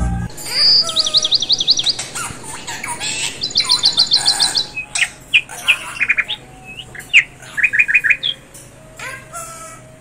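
Bird chirping: several quick trills of rapid, high repeated chirps, with scattered single chirps and calls between them.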